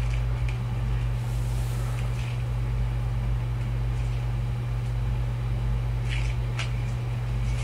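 A steady low hum throughout, with a few faint clicks and rustles over it.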